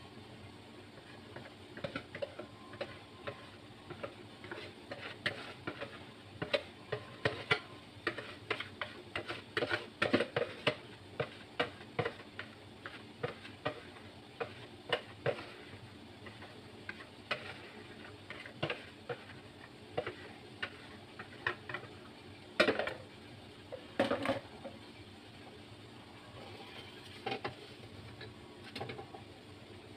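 Wire whisk tapping and scraping against a plastic mixing bowl as batter is pushed out into a glass jug: a run of irregular light clicks, with two louder clusters of knocks about two thirds of the way through.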